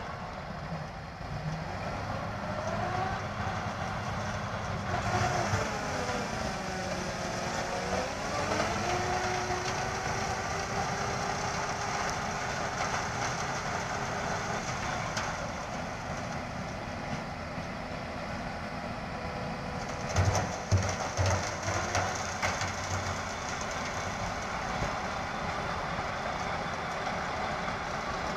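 Heavy four-wheel-drive tractor's diesel engine running under load while its front-mounted rotary snowblower churns and throws snow. The engine note dips and then settles about a quarter of the way in, and a few loud knocks come about two-thirds of the way through.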